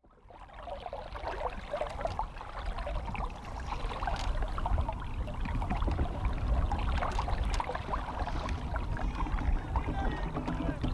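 Water splashing and lapping, with many small irregular splashes, fading in over the first second.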